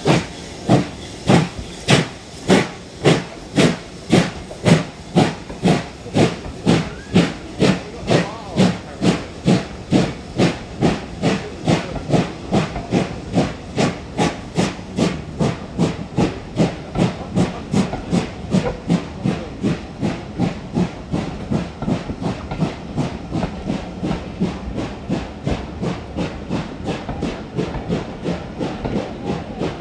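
GWR Grange-class 4-6-0 steam locomotive 6880 Betton Grange starting a train away, its two-cylinder exhaust beating evenly at about two beats a second over a hiss of steam. The beats quicken slightly as it gathers speed and grow fainter in the second half as it draws away.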